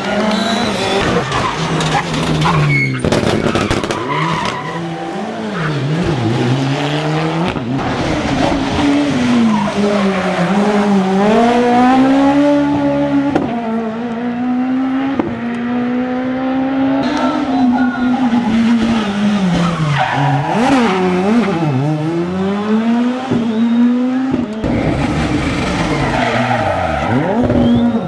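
Rally cars at full pace on a tarmac stage, heard in a string of short passes: engines revving hard, climbing in pitch through the gears and dropping away on lift-off and downshifts into corners.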